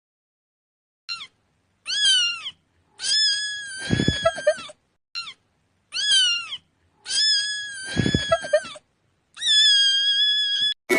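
A cat meowing: high, mostly falling meows, with the same group of a short meow, a meow and a long meow playing twice over, then one long steady meow near the end.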